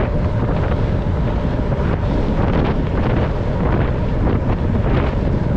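Loud wind buffeting on the camera microphone from riding a bicycle at speed, a dense steady rumble strongest in the low range.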